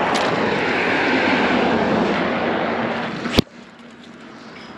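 A vehicle passing close by on the road: a steady rush of tyre and engine noise that cuts off abruptly with a click about three and a half seconds in.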